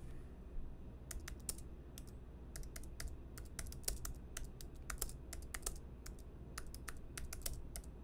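Typing on a computer keyboard: quick, irregular key clicks starting about a second in.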